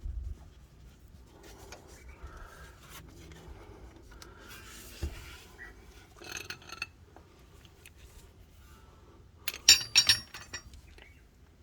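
Metal tools being handled: scattered clicks and rubbing, then a loud clatter of ringing metal near the end.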